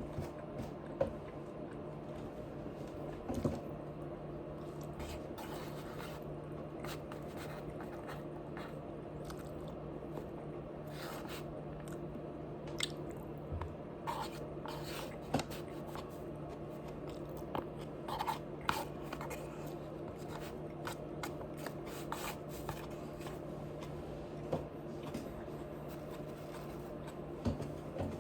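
Close-up eating sounds: chewing and biting, a string of short irregular mouth clicks over a steady low background hum.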